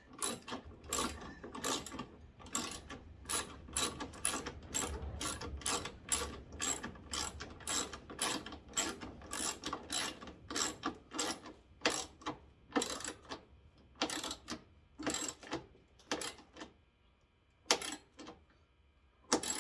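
Hand ratchet clicking as it turns fasteners back in, about two clicks a second, then slower with pauses and single clicks near the end.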